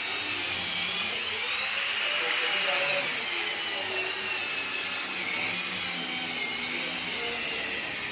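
Steady machine whirring, a hiss with a thin high whine that slowly drifts up and down in pitch.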